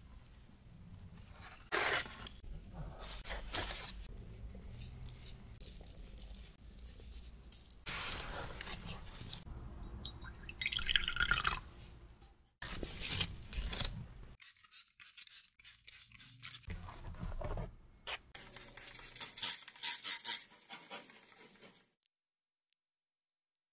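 A plastic bench scraper cutting, scraping and lifting soft, floured whole wheat ciabatta dough on a board, with irregular scrapes and soft pats. Around halfway through, water trickles and drips into a small ceramic ramekin; the sound falls away to near silence near the end.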